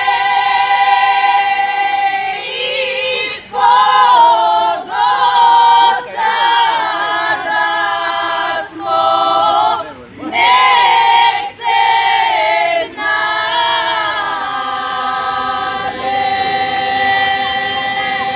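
Group of women singing a traditional folk song a cappella in close harmony, in phrases broken by short breaths. The song ends on a long held note over the last few seconds.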